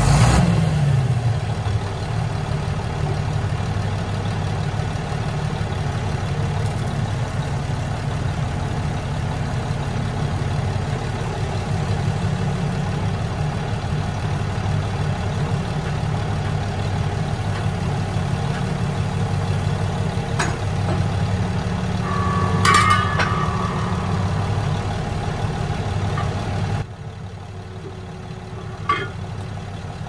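Large John Deere farm tractor's diesel engine idling steadily. A couple of sharp metallic clanks come about two thirds of the way through, and near the end the engine sound drops away.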